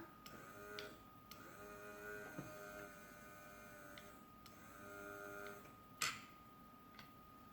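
A talking bank's small record-and-needle voice mechanism playing faintly, giving drawn-out, hard-to-make-out voice tones in two stretches. A few light clicks come with it, and a sharper click about six seconds in.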